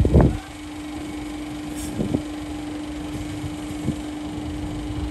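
Street ambience: a steady low hum over the rumble of traffic, with a short loud thump at the very start and softer knocks about two seconds in and just before four seconds.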